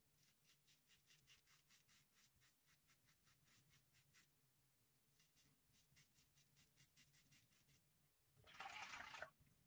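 Rockwell 6C safety razor scraping through a week's stubble in short, rapid strokes, a quiet run of rasps about five a second, with a brief pause about four seconds in. Near the end comes a louder hiss lasting under a second.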